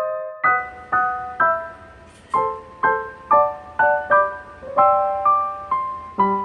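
Background piano music: a gentle melody of single struck notes, about two a second, each fading before the next.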